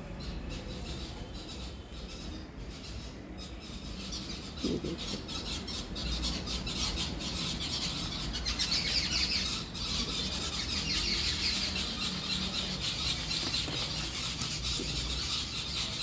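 Many small birds chirping together, a dense high twittering that grows louder about five seconds in, with leaves rustling close by as the plants are handled.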